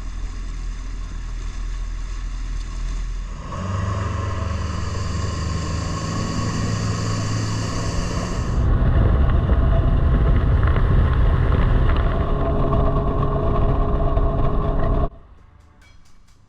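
An engine running steadily. It gets louder about three and a half seconds in, and louder again with more rushing noise near nine seconds, then cuts off abruptly about a second and a half before the end.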